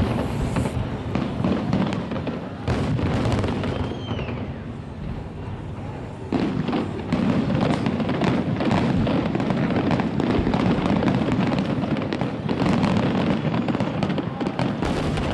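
Aerial fireworks display: a dense barrage of shell bursts and bangs, overlapping one another, easing off for a couple of seconds a few seconds in and then building again.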